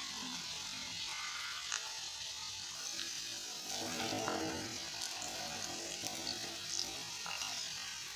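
Chicken pieces deep-frying in hot oil in an iron kadai: a steady sizzle, with a few light clicks of a perforated metal slotted spoon against the pan as the pieces are turned.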